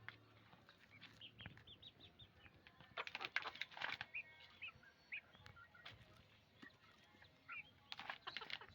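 Faint chickens on a farm: short clucks and peeping calls throughout, with bursts of rapid flapping or scuffling about three seconds in and again near the end.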